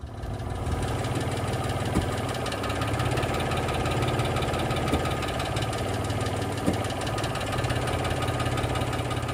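Mitsubishi Mirage 1.2 L three-cylinder engine running steadily at high mileage (524,000 km), with a dense, rapid clatter and a few louder knocks.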